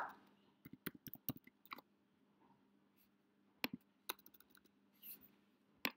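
Faint keystrokes on a computer keyboard: a quick run of light clicks in the first two seconds, then a few more taps near the middle as a word is typed.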